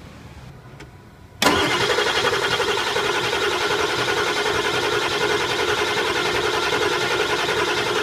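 2001 Ford 7.3 Powerstroke V8 turbodiesel cranking on its starter, the solenoid jumped with the key off so the engine turns over without firing. The cranking starts suddenly about a second and a half in and keeps an even, steady rhythm, the sign of equal compression in every cylinder.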